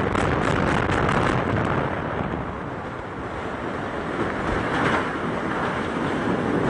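Building implosion of the Castaways hotel tower: the last rapid cracks of the demolition charges in the first second or so, then the long rumble of the tower collapsing. The rumble eases a little midway and swells again.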